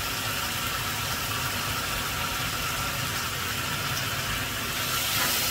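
Chicken curry bubbling and sizzling in a frying pan: a steady hiss with a low hum underneath.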